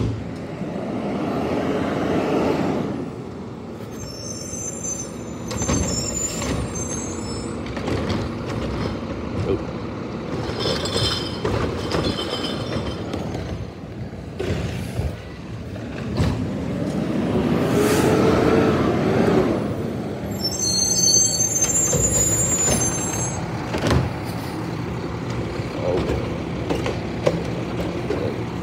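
Garbage truck's engine running and revving up twice, with high brake squeals and air-brake hiss as it stops and starts along the curb.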